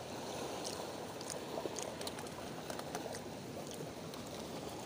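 Steady rush of wind and water, with faint light crinkles of a plastic bag as hands pick food out of it.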